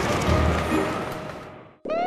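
Cartoon title-card music over a steady hiss of rain, fading out through the second half. Right at the end a rising electronic alarm tone starts: an alert signal.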